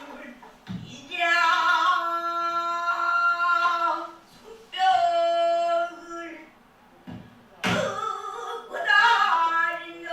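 A pansori singer holding long, ornamented sung notes, with two low strokes of the accompanying buk barrel drum, about a second in and again near the end.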